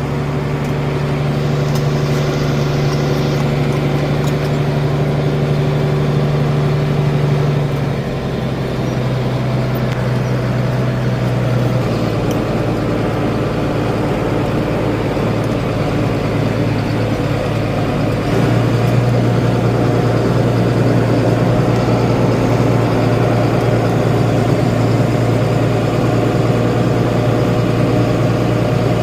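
A vehicle engine running steadily under load, heard from on board the moving vehicle. Its pitch drops about a quarter of the way in and again a little later, then rises and gets a bit louder about two-thirds of the way through.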